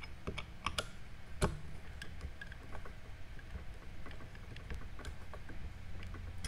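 Small clicks and ticks of a screwdriver working the set screws that clamp a plastic scope wheel onto a rifle scope's parallax turret. A few sharper clicks come in the first second and a half, then fainter scattered ticks.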